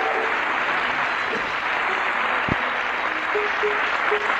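Theatre audience applauding steadily after a song ends.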